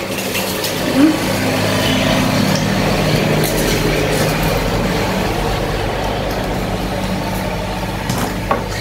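A motor vehicle passing, its engine rumble swelling early on and then slowly fading.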